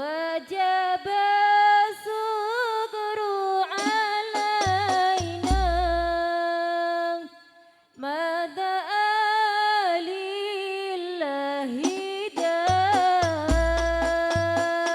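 A solo voice singing a slow, highly ornamented melody with wavering, gliding notes, in the style of an Islamic sholawat. Low drum beats come in twice, about a third of the way in and again near the end.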